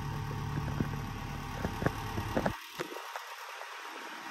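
Electric fan running with a steady low motor hum and scattered light clicks, then cutting off abruptly about two and a half seconds in, followed by a couple of clicks.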